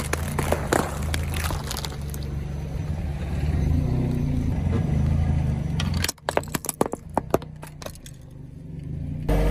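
A car engine running with a low steady drone. About six seconds in it drops away, and a quick run of sharp cracks and clicks follows, typical of something being crushed. A loud low rumble comes back near the end.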